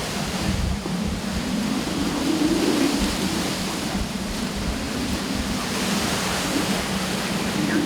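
Derecho winds gusting at 90 to 100+ mph, a steady loud rush with swelling gusts and wind rumbling on the microphone.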